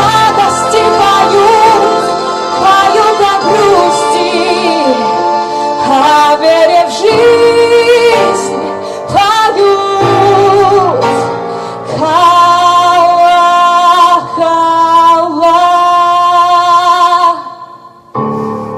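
A female voice sings long held notes with vibrato over an instrumental backing track, in the closing section of the song. The music cuts off sharply shortly before the end.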